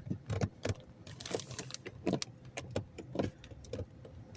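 Irregular clicks and light knocks, a dozen or so, from hands and a ratchet working at the plastic cabin-air-filter cover to pull it loose.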